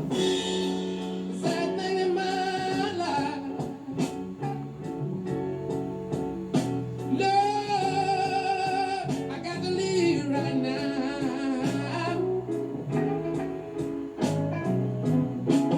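Background music: a song with a sung vocal line over guitar, bass and a steady beat.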